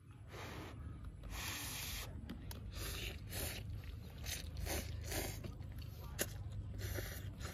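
A person slurping noodles: a run of short, noisy sucking slurps, one every half second to a second, with a sharp click about six seconds in and a steady low rumble underneath.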